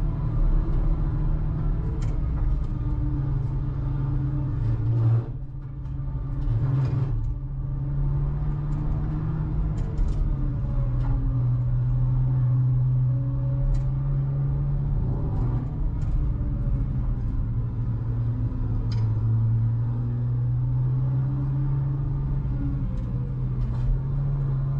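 MINI GP3 car's engine running under way, its low drone rising and falling in pitch as speed changes, with a short drop in level about five seconds in and a few light knocks.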